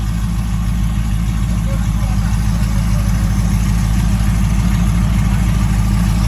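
Engines of a supercharged Jeep Grand Cherokee Trackhawk and a twin-turbo Ford F-150 idling at a street-race start line: a steady deep rumble that swells slightly louder over the few seconds.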